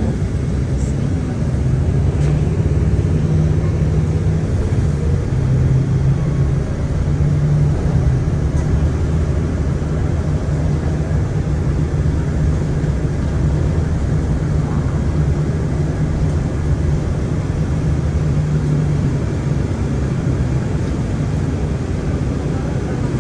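Steady engine and road drone inside a moving city bus, a low hum with a rushing noise over it and no clear breaks.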